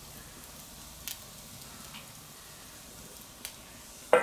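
Food sizzling faintly on a steel fire-plate griddle, with a few light clicks. Near the end a stainless steel cloche is set down on the plate with a sharp metallic clank that rings on.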